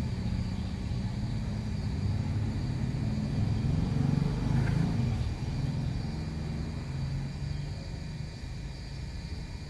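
A motor vehicle's engine running with a low rumble, swelling louder about halfway through and then easing off.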